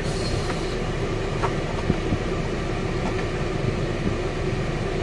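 Car engine idling, a steady low drone inside the closed cabin, with a few light clicks from small cardboard boxes being handled.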